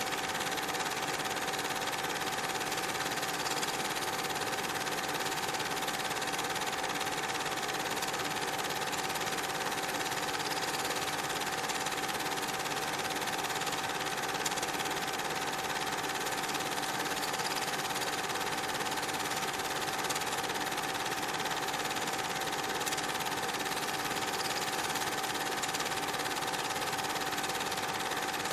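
Steady mechanical whirr with a constant high hum over even hiss, unchanging throughout.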